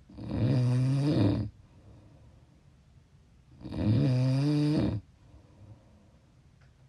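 A sleeping person snoring: two long snores about three and a half seconds apart, each with a clear low pitch.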